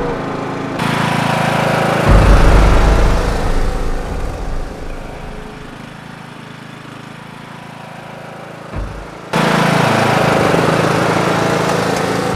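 Riding lawn mower engine running. About two seconds in it rises to a loud low rumble, then fades over several seconds. A short thump follows, and the engine sound cuts back in suddenly and loud about nine seconds in.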